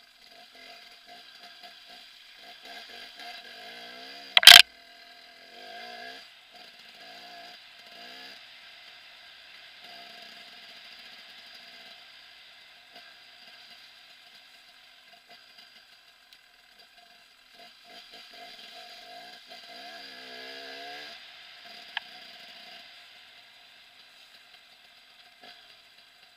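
KTM 300 EXC single-cylinder two-stroke dirt bike engine, heard thin and distant with no low end, revving up in rises as the bike is ridden. A sharp, very loud knock about four seconds in and a smaller click near the end.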